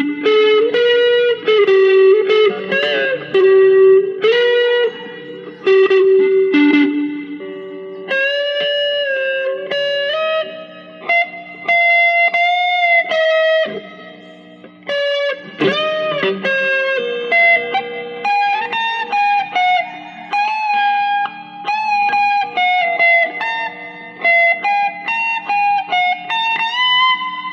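Electric guitar played through a Joyo DC-15 practice amp: a single-note melody with string bends and a wavering vibrato note.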